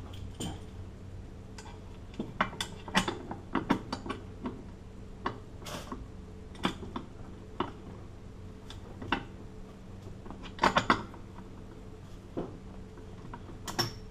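Irregular metal clicks, clinks and knocks from handling a heavy padlock and small metal parts on a workbench, with clusters about a third of the way in and again near the end. A low steady hum runs underneath.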